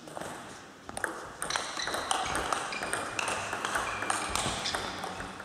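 Table tennis rally: the ball clicking back and forth off the players' rubber-covered bats and the table, a hit about every half second from about a second in.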